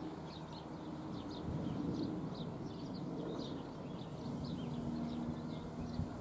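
Small birds chirping: many short, high chirps scattered throughout, over a low steady hum.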